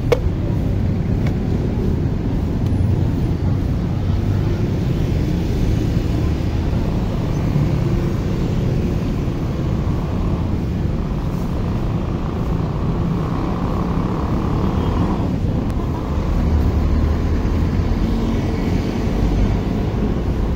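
Steady low rumble of road traffic from a busy city street, with no clear single event standing out.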